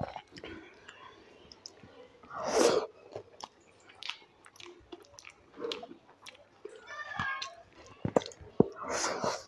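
Close-miked chewing of a mouthful of dal, rice and fried potato, with wet mouth clicks and crunches. Fingers squish through rice and dal on the plate. Two louder noisy bursts come about two and a half seconds in and near the end.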